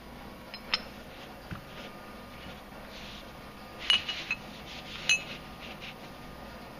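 Solid metal bullion bars, a 10 oz PAMP Suisse gold bar and a 10 oz Wall Street Mint silver bar, clinking together and being set down: a single sharp clink under a second in, a quick run of three clinks about four seconds in, and another just after five seconds, each with a short ring.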